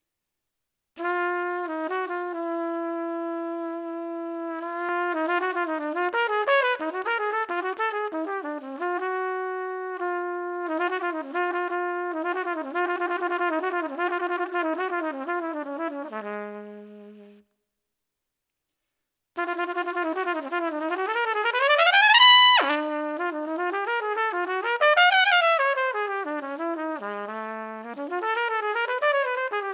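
Solo trumpet playing, close-miked on an Aston Stealth microphone's vintage setting with plate reverb: a phrase of long held notes and quicker runs that ends on a low note about 17 seconds in, then after a two-second pause a fast run climbing to a high note, followed by more phrases stepping back down.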